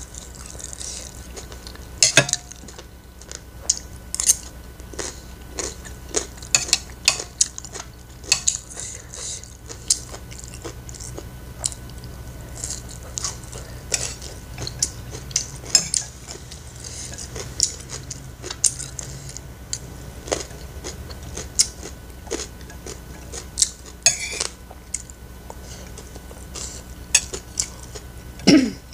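Close-up mukbang eating sounds: wet chewing and crunching of mouthfuls of fried rice with jengkol and raw green chillies, with frequent sharp clicks of a metal spoon against a ceramic plate.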